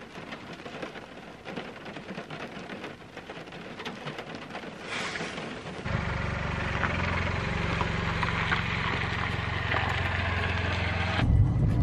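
Rain falling on a car's roof, heard from inside the cabin as dense light ticking. About six seconds in it gives way to louder, steadier rain in the open with a low steady rumble underneath.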